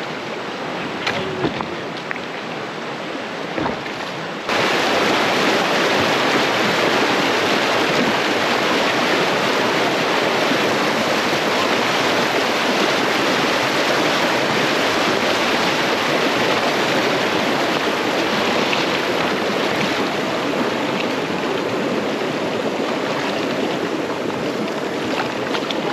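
Creek water rushing over rocks, a steady, dense rush that becomes suddenly louder about four seconds in, as a kayak runs a shallow riffle. Before that, quieter running water with a few short knocks.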